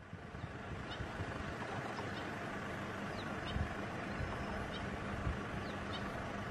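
A steady low engine-like hum with a constant hiss, with faint short high chirps recurring every second or so.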